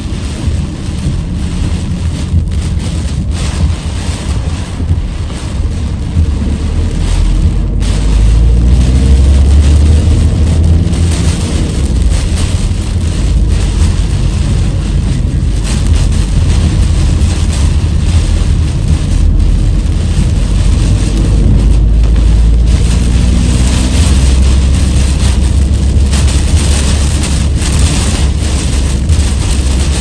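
Typhoon wind and heavy rain battering a moving car, heard from inside: a loud, steady deep rumble of wind with rain and road noise, growing louder about eight seconds in.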